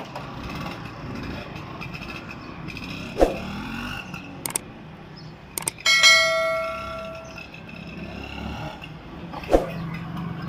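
Single-cylinder two-stroke engine of a 1978 Vespa Super 150 scooter running as it is ridden along the road. About six seconds in, two quick clicks and then a loud bell ding that rings out over about a second and a half.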